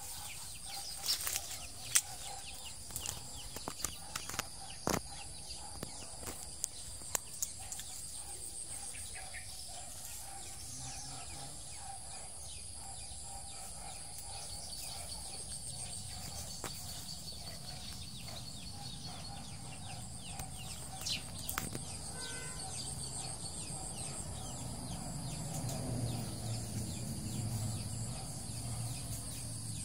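Outdoor yard ambience: a steady high-pitched insect drone, with scattered sharp clicks and rustles during the first several seconds and a low rumble near the end.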